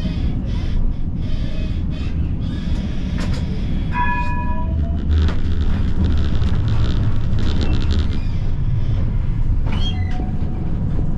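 Siemens Combino tram running over its rails: a steady low rumble, a brief high tone about four seconds in, and a run of rapid clicking and clattering as the wheels cross track switches.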